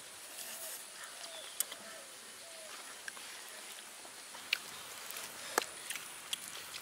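Metal forks clinking against a stainless-steel bowl of instant noodles: a few sharp, separate clicks over a steady faint outdoor background.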